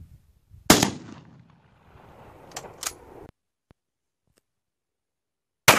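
Two pistol shots, one a little under a second in and one near the end, each a sharp crack. Between them come two fainter clicks.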